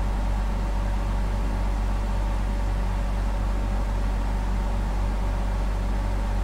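Steady low hum with a constant hiss, unchanging throughout: background electrical or workshop drone.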